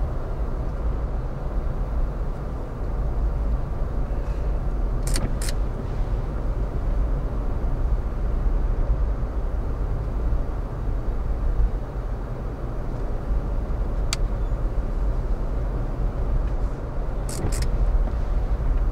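Steady low road and engine rumble inside a moving car. A few sharp clicks cut through it: two about five seconds in, one about two-thirds of the way through, and two more near the end.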